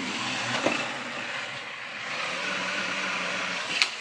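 Remote-control toy car's electric motor whirring steadily as it drives, with a short sharp click near the end.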